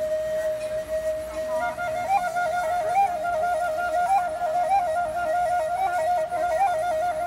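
Transverse bamboo flute holding one long steady note, then about a second and a half in breaking into a fast trill between two neighbouring notes, with brief upward flicks every second or so.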